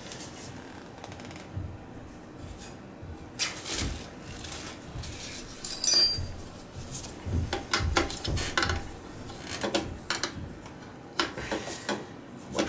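Metal clicks, knocks and rattles from an oil burner's sheet-metal housing and hinged igniter cover being handled and opened. The loudest is a sharp metallic clink about six seconds in.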